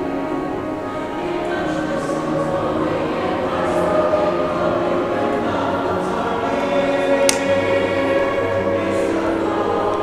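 Mixed-voice high school choir singing in harmony, with long held notes.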